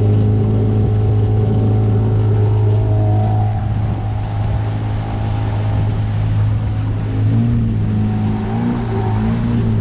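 Outboard motor on a small aluminium boat running at a steady speed, a constant low hum.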